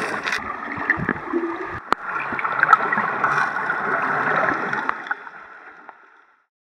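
Muffled water noise heard underwater, bubbling and gurgling with scattered small clicks as swimmers move and bubbles rise, fading away near the end.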